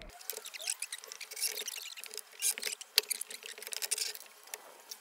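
Corded power drill driving screws through a hinge into a plywood lid and box, heard as a thin, high-pitched run of quick, irregular clicks, scrapes and squeaks.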